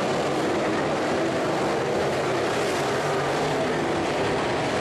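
Dirt-track modified race cars running at speed around the track, their engines blending into one steady drone.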